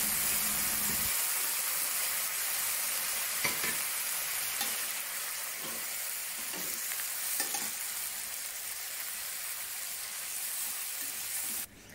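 Chicken wings sizzling in hot oil in a stainless-steel pan, a steady hiss, with a few soft knocks and scrapes as a wooden spatula and metal tongs turn them. The sizzle cuts off suddenly near the end.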